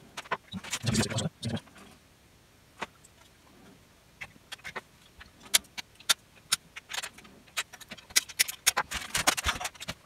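Hands working small metal parts inside an opened AV receiver chassis: scattered clicks, taps and light metallic rattles as the rectifier's bolt and shakeproof washer are fitted through the back panel, with about a second of rustling near the end.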